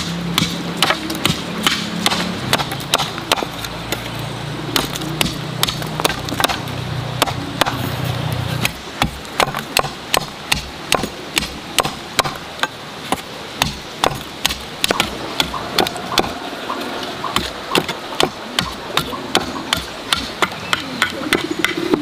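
A machete blade chopping bamboo stakes to a point against a stone block: sharp chops repeating about twice a second.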